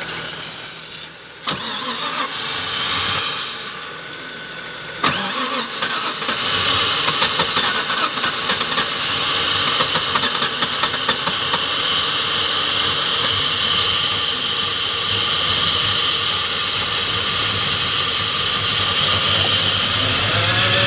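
LS1 V8 cranking on the starter, trying to fire but not catching, while starting fluid hisses from an aerosol can sprayed into the intake.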